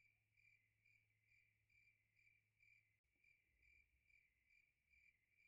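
Near silence, with only an extremely faint high tone pulsing about twice a second.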